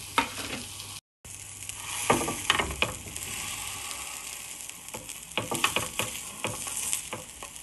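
Potato cutlets sizzling on a hot tawa griddle, a steady frying hiss. A metal slotted spatula clicks and scrapes against the griddle in two bursts as the cutlets are turned.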